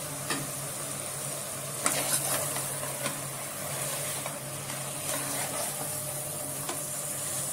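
Raw chicken pieces sizzling in hot oil and cooked masala in a pressure cooker pot as a spatula stirs them, with a few sharp knocks and scrapes of the spatula against the pot, over a steady low hum.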